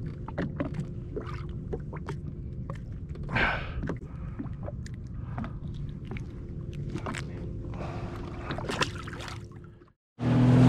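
A 2021 Sea-Doo FishPro idling with a steady low hum under scattered clicks and knocks of fishing tackle being handled. Near the end it fades out, and the ski's engine cuts in much louder, running under way.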